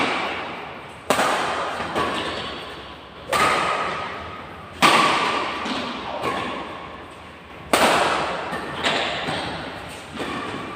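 Badminton rackets striking a shuttlecock in a rally: sharp hits every one to three seconds, each ringing on in a reverberant hall, with fainter knocks between them.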